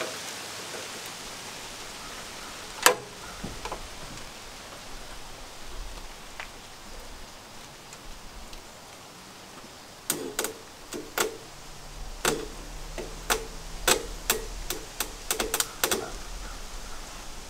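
A steady hiss that fades over the first few seconds, then from about ten seconds in a quick run of sharp clicks and knocks, as of tools and metal parts being handled during engine repair work.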